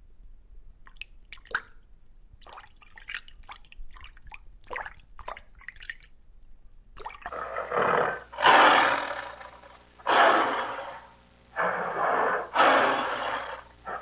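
Faint water drips and scattered clicks, then from about halfway a cheetah calling: about five loud, harsh, unpitched calls of about a second each.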